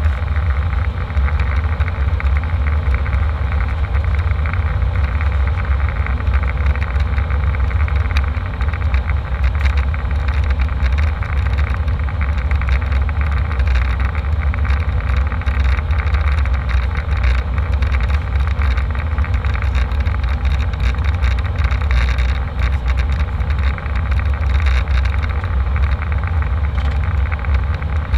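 Airliner cabin noise: a steady, loud low rumble of engines and airflow, with faint ticks and rattles over it.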